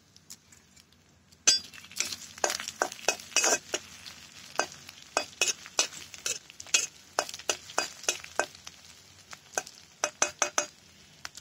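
Metal spatula scraping and knocking against an iron kadhai as onions and green chillies are stirred in hot oil, in a quick, irregular run of strokes starting about a second and a half in. Under the strokes is a faint sizzle of the frying.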